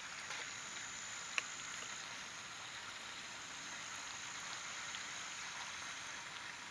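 Faint steady outdoor hiss, with a thin high whine that stops about six seconds in and a single sharp click about a second and a half in.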